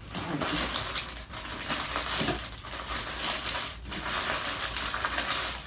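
Packaging crinkling and rustling as it is handled and rummaged through.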